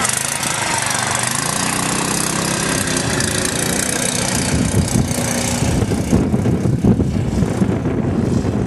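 Mini Baja off-road buggy's small engine running under throttle as it drives off across gravel. Its pitch rises and falls with the throttle, and the note turns rougher and choppier over the second half.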